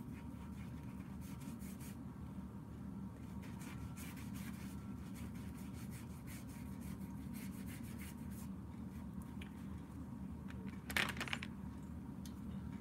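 Watercolour brush scrubbing and stroking across paper, a run of soft scratchy rubs over a steady low hum. About eleven seconds in, a brief louder handling noise.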